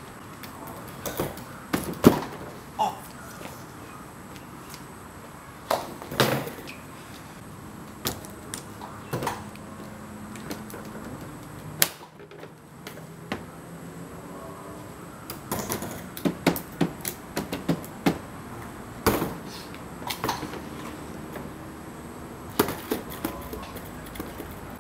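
Skateboard knocking and clacking on a concrete driveway: a string of sharp, irregular knocks and slaps from the deck, tail and wheels hitting the ground as tail drops are tried, with quieter stretches of steady hiss between them.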